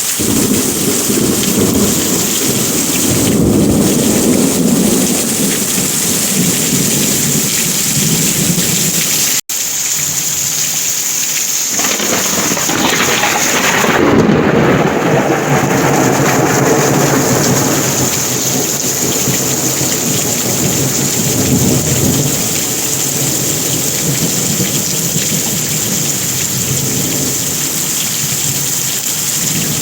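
Heavy rain falling steadily, with rolling thunder rumbling under it: one roll right at the start and a longer one from about twelve seconds in. The sound cuts out for a split second about nine and a half seconds in.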